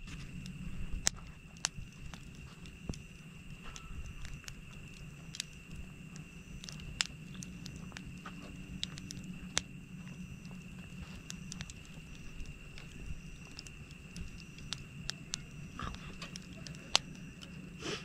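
Wood campfire burning in a fire pit, crackling with sharp, irregular pops, the loudest about a second in and near the end.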